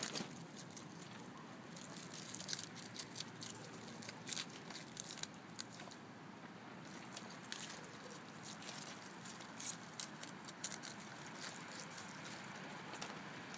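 Groundhog chewing and biting into lettuce leaves: many small, irregular crunches over a faint steady hiss.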